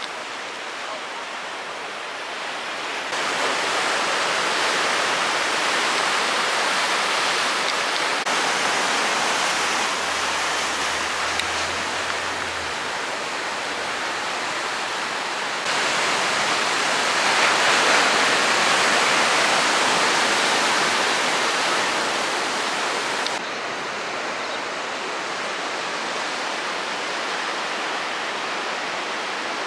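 Ocean surf: a steady rush of waves breaking and washing over rocks and sand. Its level and tone change abruptly several times.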